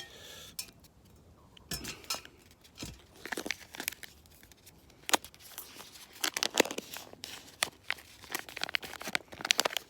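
Plastic pouch of microwavable egg fried rice crinkling and tearing as it is cut open with a knife: irregular sharp crackles that come thicker about halfway through.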